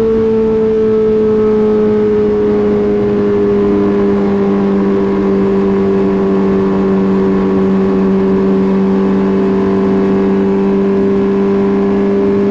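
MV Agusta F4R inline-four engine breathing through a Termignoni full exhaust system, running loud and steady at high revs, its pitch sinking slowly and slightly over the stretch.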